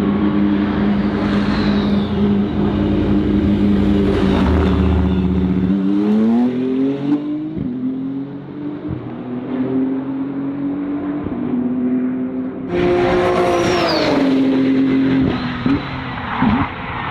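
BMW M4 GT3 race car's twin-turbo straight-six running hard at high revs, its pitch climbing in steps as it accelerates. About three-quarters through, a louder surge of engine noise cuts in and then drops in pitch.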